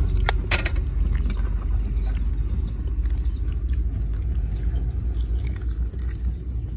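A continuous low rumble, with a few light clicks near the start as a fork taps an egg to crack it. About six seconds in there is a brief sizzle as the egg drops into the hot frying pan on a camping gas stove.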